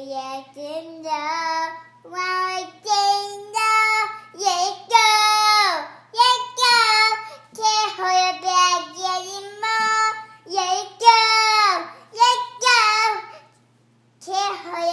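A young girl with hiccups singing a song unaccompanied, her high voice moving through short held phrases, with a brief pause near the end.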